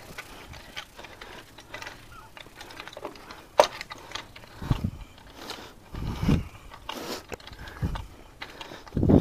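Action hoe (a pivoting stirrup hoe) being worked back and forth through loose soil and mulch, with short scratching scrapes and light ticks and one sharp click a few seconds in. In the second half come several low, dull thumps.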